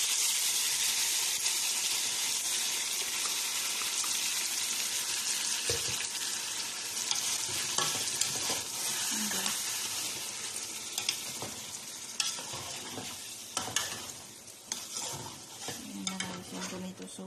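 Chicken pieces sizzling in a hot pot as tomato sauce is poured in and stirred with a spatula. The sizzle is strongest at first and dies down over the second half, while the spatula clicks and scrapes against the pot.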